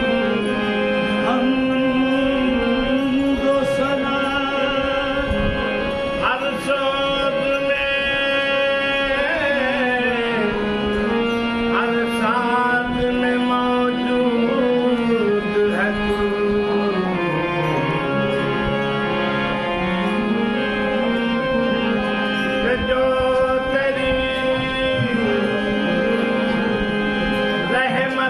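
Qawwali music: singing over harmonium and tabla, with the melody held on long steady notes that step from pitch to pitch.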